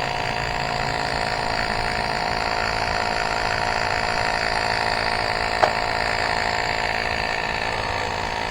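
Cordless electric tire inflator running steadily, its motor and compressor humming as it pumps up a bike tire set to 40 psi. One light click about five and a half seconds in.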